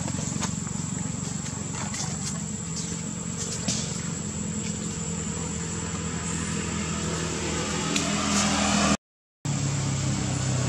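A motor vehicle engine running steadily, growing louder toward the end, with a steady high tone and scattered clicks over it; the sound cuts out briefly about nine seconds in.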